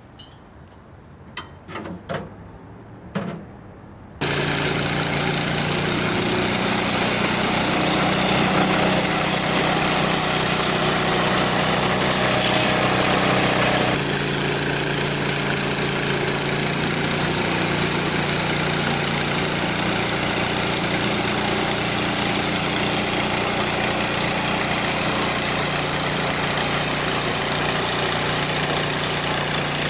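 A few light knocks, then the Frontier OS23 sawmill's engine, fitted with a new muffler, running loud and steady. Its note shifts slightly about ten seconds after it comes in.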